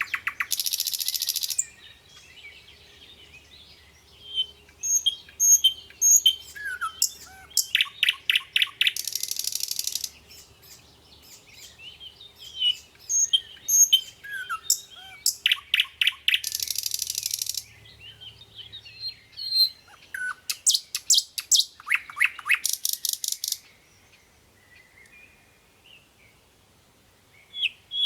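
Birds singing: a loud, fast trill of repeated notes comes back every few seconds, with softer chirps and whistled notes in between.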